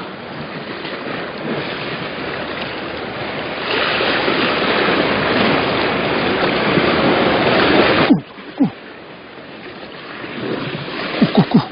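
Wind buffeting the microphone together with sea surf washing against the shore rocks: a steady rushing noise that grows louder about four seconds in and cuts off abruptly after about eight seconds. A few short falling squeaks come near the end.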